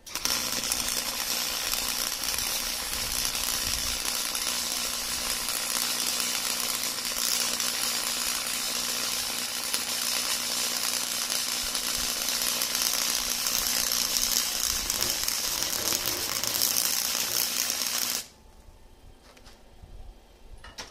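Harbor Freight Chicago Electric Flux 125 flux-core wire welder laying a bead: a steady crackling arc that starts at once and cuts off suddenly about 18 seconds in. Near the end of the bead the arc hiccups and throws a little spatter, which the welder puts down to wire he had rewound after it unspooled.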